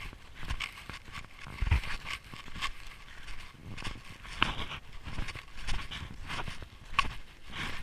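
Snowshoes crunching on packed snow at a walking pace, about two steps a second, each step a short crunch with a low thump.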